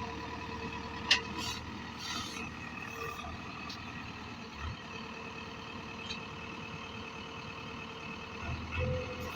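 Heavy-machine diesel engine running steadily, with one sharp metallic clank about a second in and a few lighter knocks.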